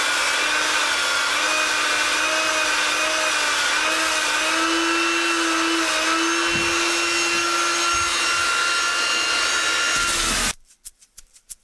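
Small belt sander running with a steady whine of slightly wavering pitch, while a rubber belt cleaner is pressed against the moving abrasive belt to clear the clogged grit. It cuts off suddenly about ten seconds in.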